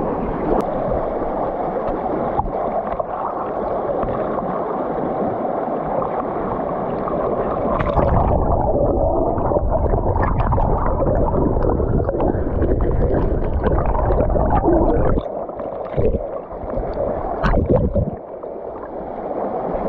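Shallow river water rushing and gurgling over rocks, picked up with the microphone right at the surface. From about 8 seconds in the sound turns duller and bubbling as water washes over the microphone, and in the last few seconds it drops away and comes back several times.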